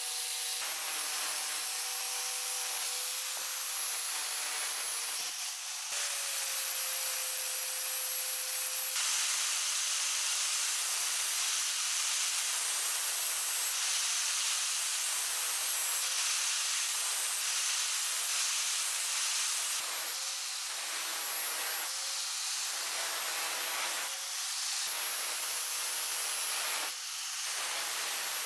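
Angle grinder with an abrasive disc sanding rust off a cast-iron coal iron: a steady motor whine under a rough hiss that swells and eases as the disc is pressed on and lifted off the metal.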